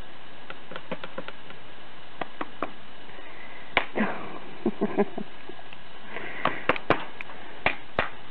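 Steady background hiss with a series of sharp clicks and knocks, the loudest clustered about four to five seconds in and again near the end.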